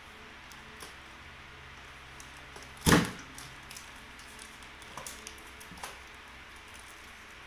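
A shrink-wrapped pack of plastic milk bottles knocking over onto a table with a single loud thump about three seconds in, followed by a few light taps and knocks as the bottles are handled.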